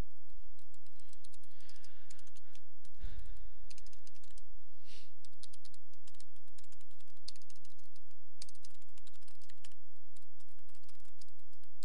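Computer keyboard typing: quick, irregular keystrokes as code is entered, over a steady low hum, with a short low thump about three seconds in.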